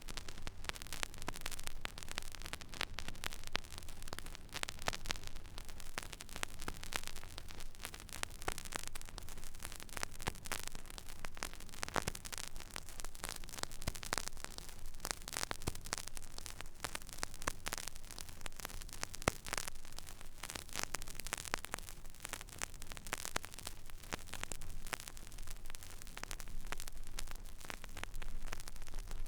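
Record player stylus riding an empty vinyl groove: steady surface hiss crowded with small crackles and pops, over a low hum.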